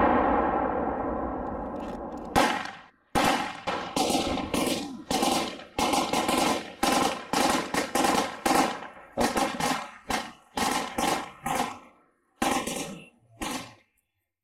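Rifle gunfire: a rapid string of single shots, about two or three a second, each echoing off the surrounding apartment buildings, ending with two spaced shots near the end. It follows the fading rumble of a heavy blast over the first two seconds.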